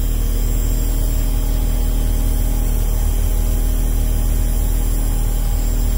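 Cummins ISC inline-six diesel engine idling steadily, with a dashboard warning buzzer droning continuously over it. The buzzer is not the low-air alarm, since the air pressure is fine, and its cause is unknown.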